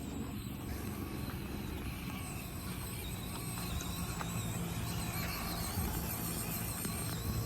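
Small electric motors and gearboxes of 1/24-scale RC crawlers whining as they drive, the pitch rising and falling with the throttle, over a steady low rumble.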